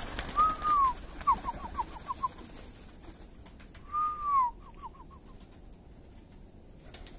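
A high whistled call, heard twice: a long arched note that rises and falls, followed by a quick run of short falling notes, five or six the first time and three or four the second.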